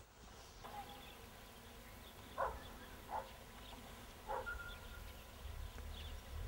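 Faint outdoor ambience in a grassy field with three short animal calls, a little over two, three and four seconds in.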